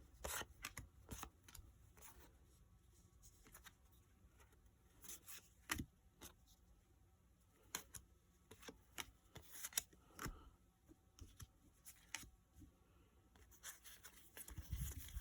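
Pokémon trading cards handled and flipped through one by one: faint, irregular rustles and light card clicks.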